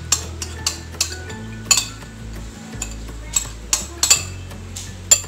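A spoon knocking and scraping against a bowl as a thick yogurt and cream mixture is emptied into a frying pan: a dozen or so sharp clicks at uneven intervals.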